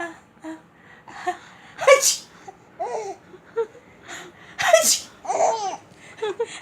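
A woman fakes two sneezes, about two seconds in and again near five seconds, and a baby laughs after each one.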